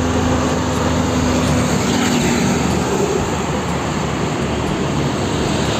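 Heavy fuel tanker truck driving along a road: steady diesel engine rumble and tyre and road noise as it passes, with other lorries' traffic noise.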